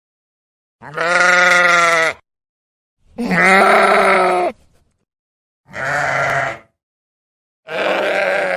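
Sheep bleating: four separate bleats, each a second or more long, with silence between them.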